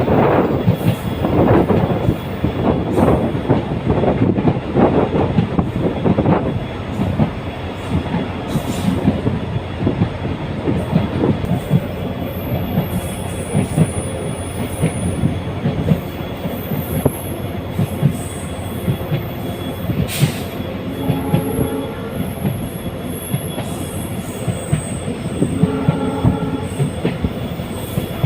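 Express passenger train running at speed, heard from on board: a steady rumble of wheels on rail with a run of rhythmic knocks over rail joints, heaviest in the first several seconds.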